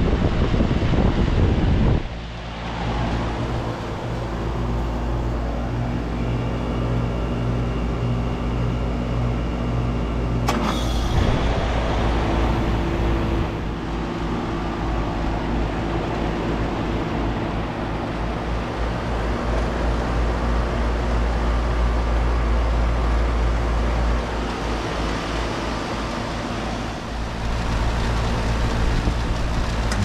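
Outdoor unit of a 2015 Amana ASZ16 1.5-ton heat pump in heat mode: the condenser fan's air noise cuts off suddenly about two seconds in, leaving the compressor humming steadily, as in the start of a defrost cycle. About ten seconds in a sharp click is followed by a few seconds of hissing, and the compressor hum then runs on steadily.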